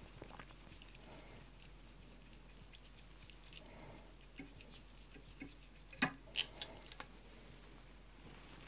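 Quiet room with a low steady hum and a few faint clicks and taps, most of them about six to seven seconds in: small handling sounds while a bobbin wraps thread onto the wire at a fly-tying vise.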